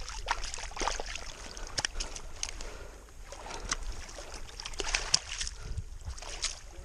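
Water splashing and lapping in irregular small strokes at the shoreline, over a low steady rumble.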